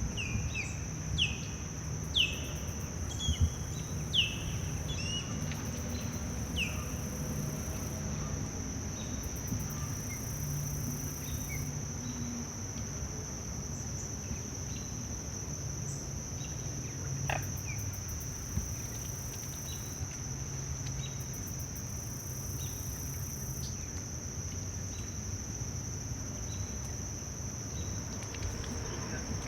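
Steady high-pitched trilling of insects such as crickets, with bursts of even higher pulsing on and off. In the first seven seconds a bird gives a string of short down-slurred chirps, and a low background rumble runs underneath.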